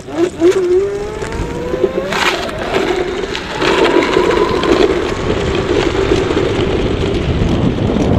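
Electric scooter's 36 V hub motor, driven by a 72 V 1500 W controller, whining and rising in pitch as the scooter accelerates hard, then holding a steady whine, over tyre and wind rush. A brief rush of noise comes about two seconds in.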